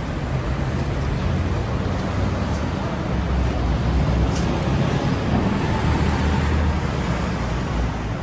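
City street traffic noise: a steady wash of road noise with a vehicle's low engine rumble, louder between about three and seven and a half seconds in.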